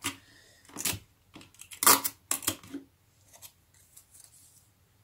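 Paper-craft handling: a string of short, sharp snips and rasps from paper strips, scissors and sticky tape, the loudest about two seconds in, then a few faint light clicks.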